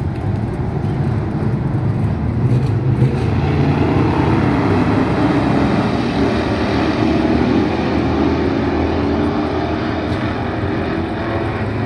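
A pack of dirt-track stock cars racing on a dirt oval, several engines revving together as they pass, louder in the middle as the pack goes by.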